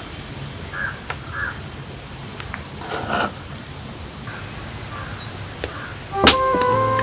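Crows cawing, several short calls scattered over the first few seconds. About six seconds in, a sharp strike and music with held tones begin.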